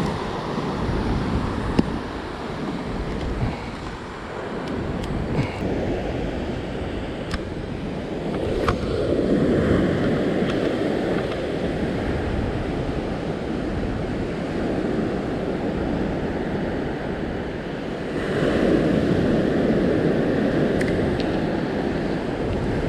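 Waves breaking and washing up a surf beach in a steady rush, with two louder surges about nine seconds apart.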